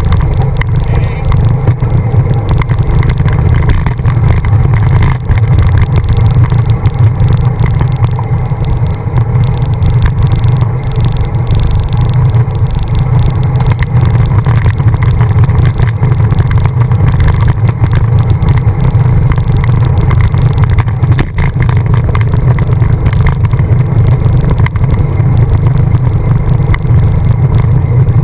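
Wind buffeting the microphone of a handlebar-mounted camera on a moving road bike: a loud, steady low rumble.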